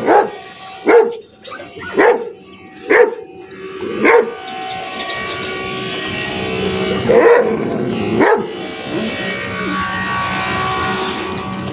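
A dog barking in short, single barks about once a second, five times, then two more barks a few seconds later.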